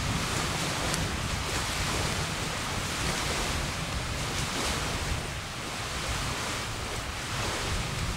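Wind blowing, with a steady rushing noise and low rumbling buffets on the microphone.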